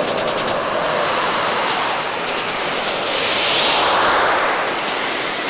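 A model aircraft's turbojet engine of about 180 N thrust running at full power as the model jet accelerates down the runway on its takeoff roll. It is a steady jet noise that swells about three seconds in as the jet passes, then drops in pitch as it moves away.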